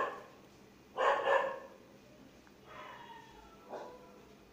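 A dog barking: two quick barks about a second in, then fainter shorter calls later.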